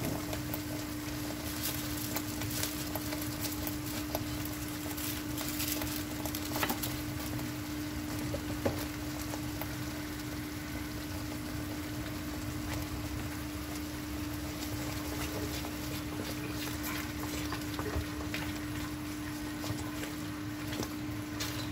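Thick spinach gravy simmering and sputtering in a pan, with scattered pops over a steady hum; it is stirred with a wooden spoon near the end.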